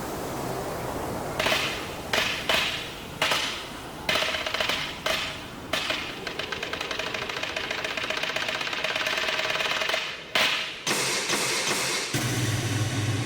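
Handling knocks and clacks from a boxed vinyl figure being moved about on a surface: about eight sharp knocks in the first six seconds and two more near ten seconds, over a steady hiss. A low steady hum comes in near the end.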